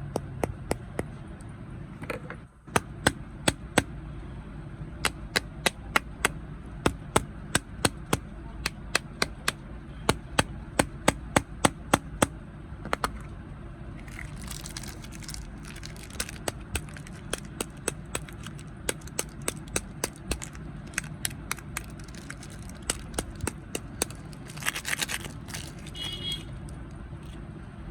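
Crunchy snack being chewed close to the microphone: sharp, crisp crunches about two a second, with a break about halfway through and hissy rustling bursts in the middle and near the end, over a steady low hum.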